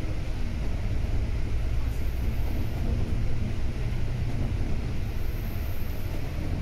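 Volvo B9TL double-decker bus running along the road, a steady low rumble of engine and road noise.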